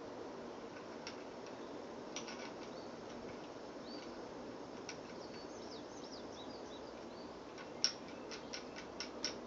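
Quiet outdoor background with faint bird chirps, and scattered small metallic clicks and taps from a suppressor being screwed by hand onto a Ruger .22 pistol's threaded barrel. The sharpest click comes near the end, followed by a few lighter ones.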